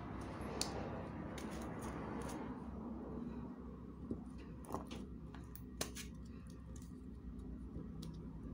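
Scattered light clicks and taps from a small plastic glitter container being handled and shaken over the glued letter, the glitter failing to pour out, over a steady low hum.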